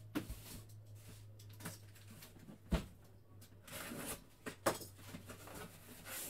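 Cardboard boxes being handled and lifted: three dull knocks, the loudest a little under halfway, and a short scraping rustle of cardboard sliding against cardboard.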